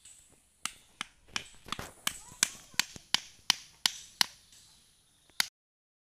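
A blade chopping into a wooden stick, with sharp, regular strikes about three a second, a dozen in all, stopping abruptly near the end.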